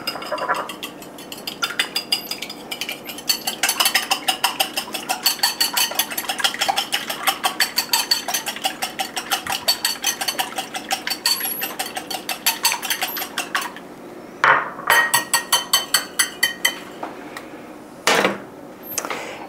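A metal whisk beating eggs in a ceramic bowl: quick, rhythmic clicks against the bowl, several a second, with a couple of short pauses.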